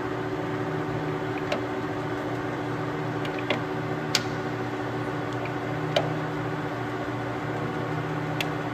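LeBlond Regal Servo Shift lathe running with a steady hum from its motor and gearing. Five or so sharp metallic clicks come as its feed and apron levers are shifted into position.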